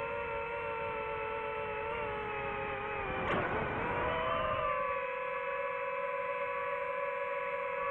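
DJI FPV drone's electric motors and propellers whining steadily at a high pitch. About three seconds in, the whine dips in pitch with a brief rush of air, then climbs back as the drone changes throttle.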